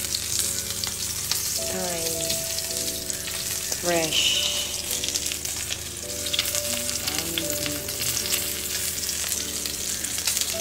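Wagyu steak searing in foaming butter with garlic and thyme in a black pan, giving a steady, crackling sizzle.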